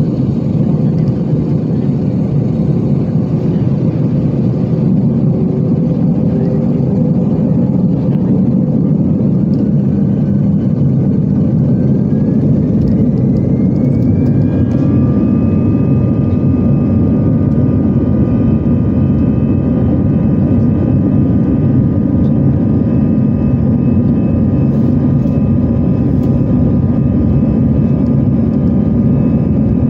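Airbus A320 jet engines heard from inside the cabin as a steady roar. A whine climbs in pitch from about ten to fifteen seconds in and then holds steady, as the engines spool up to takeoff thrust for the takeoff run.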